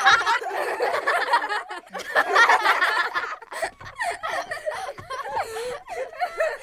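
Human laughter, with choppy, wavering laughing sounds throughout.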